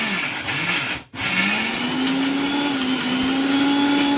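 Electric mixer grinder dry-grinding whole spices, garlic and roasted chana in its steel jar. About a second in the motor slows and cuts out briefly, then spins back up with a rising whine and runs steadily.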